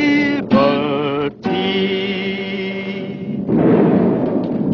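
Sung music ends on the word "liberty", held as one long final note. About three and a half seconds in, a low rumbling crash rolls in and slowly dies away.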